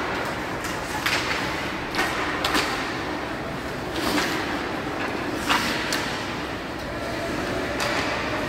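Ice hockey play at the rink: several sharp clacks of sticks striking the puck and the puck hitting the boards, spaced irregularly about a second apart, over a steady hubbub of skates and the rink.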